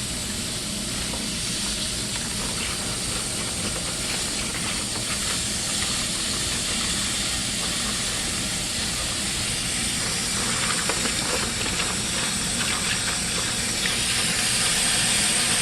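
Steady hiss of compressed air pushing vinegar through a hose into a water heater tank, the air pressure audible. It grows louder in the last few seconds, with a thin high whistle.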